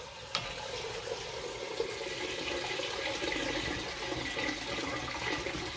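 Sliced onions and dried mushrooms being stirred with a wooden spoon in a cast-iron pot as they dry-roast without oil: a steady rustling sizzle.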